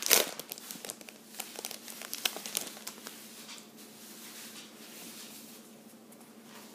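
Foil wrapper of a Pokémon trading card booster pack crinkling as it is torn open. The loudest rip comes right at the start, with scattered crinkles over the next two seconds or so, then it goes quieter.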